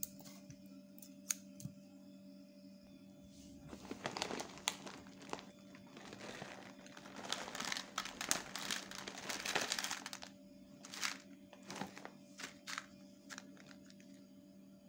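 Plastic dry cat food bag crinkling as it is handled, in dense bursts for several seconds, then a few short sharp clicks.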